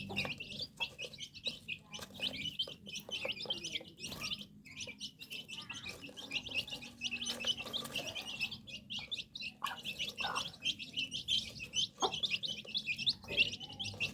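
Small birds chirping rapidly and continuously: many short, high-pitched chirps overlapping one another.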